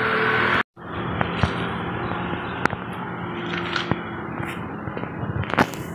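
Steady background noise of a coin laundry with a low hum and a few light clicks and knocks, broken by a short cut to silence less than a second in.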